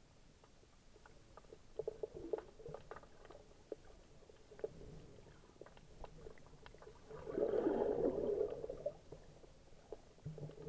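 Underwater sound picked up through an SJ4000 action camera's waterproof housing: a muffled, low rush of shallow seawater with scattered small clicks and crackles. About seven seconds in, a louder surge of rushing, crackling water swells up for about two seconds and fades.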